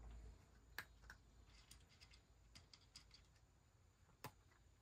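Faint crunching and ticking of a cat eating from a dish, with two sharper clicks, one about a second in and one near the end.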